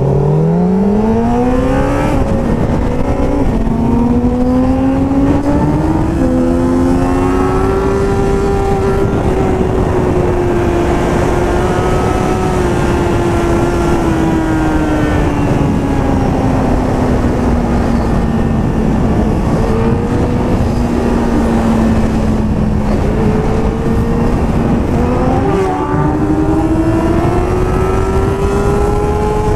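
Sport motorcycle engine pulling hard as the pitch climbs in the first two seconds, then cruising with its note drifting slowly up and down, with another rise near the end. Heavy wind rush on the helmet microphone.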